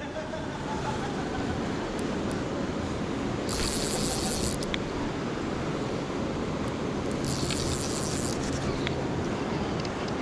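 Steady rush of river water. Two brief, high, hissy buzzes of about a second each come near the middle and again about three-quarters of the way through.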